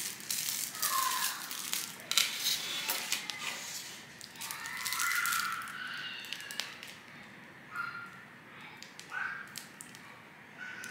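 Plastic piping bags crinkling as they are squeezed, with scattered light clicks and taps of handling on the work table.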